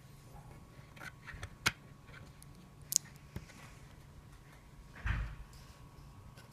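Handling noises: several sharp clicks and taps in the first few seconds, then a dull thump about five seconds in, over a faint steady hum.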